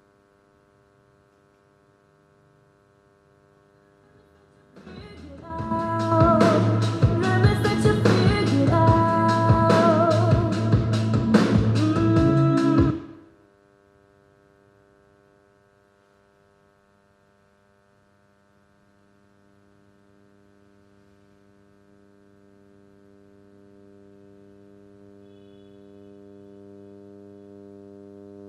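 Steady electrical hum from audio equipment, with a stack of evenly spaced overtones. About five seconds in, loud music with a drum beat plays over it for roughly eight seconds and cuts off suddenly. The hum then returns and swells gradually louder through the last several seconds.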